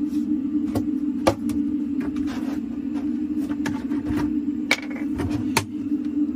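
Household items handled on a countertop: a plastic drinking glass set down, and a large plastic water jug lifted and its cap unscrewed, giving several sharp clicks and knocks over a steady low hum.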